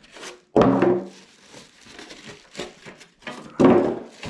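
Styrofoam packing blocks being pulled off a computer case, squeaking and scraping in two loud bursts, about half a second in and again near the end, with lighter plastic crinkling between.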